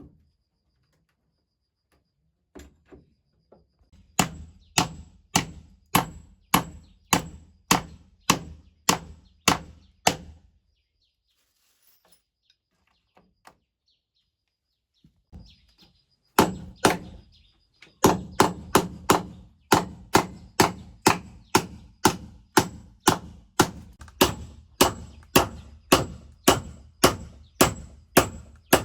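Hand tool striking wood in steady repeated blows, about two a second. The blows come in two long runs with a pause of several seconds between them.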